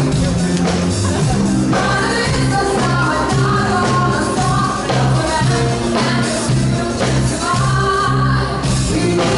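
Dance music with a steady beat and a singing voice.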